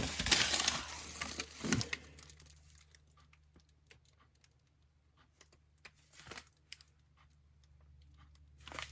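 Plastic grocery bag crinkling and rustling as it is handled, then a few small clicks and taps from items being sorted.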